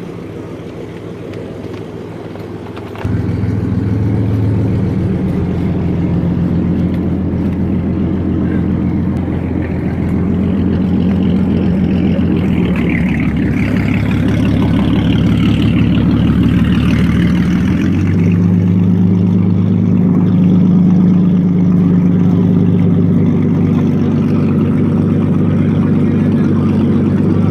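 Inboard engine of a classic wooden cabin boat running at idle with a steady low note, getting clearly louder about three seconds in, its pitch shifting around ten and again around eighteen seconds in as the boat manoeuvres off the dock.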